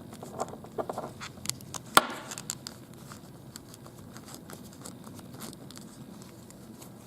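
Handling noise: scattered light clicks and taps, with one sharp click about two seconds in, then quieter.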